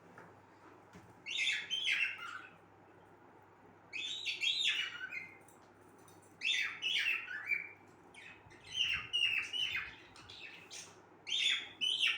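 Cockatiel singing: about five short phrases of chirpy whistled notes, a couple of seconds apart.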